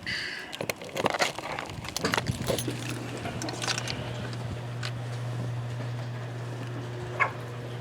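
A few knocks and clicks, then a steady low motor hum from about two and a half seconds in: an electric garage door opener raising the door.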